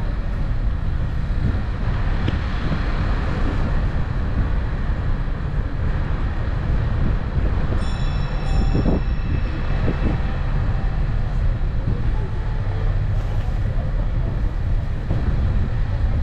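Lucerne City Train, a rubber-tyred road tourist train, heard from aboard as it drives: a steady low running rumble. A brief high-pitched tone sounds twice about eight seconds in.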